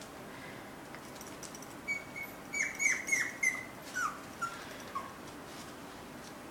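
Puppy whining and yipping in a run of about eight short, high squeaks over roughly three seconds, starting about two seconds in; most of the squeaks fall in pitch, and the last few are lower.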